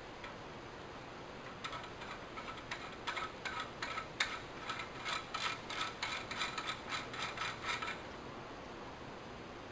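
Hand ratchet wrench clicking as it runs a jam nut onto the valve installation tool's threaded rod. The quick run of clicks, about four or five a second, starts a second and a half in and stops about eight seconds in.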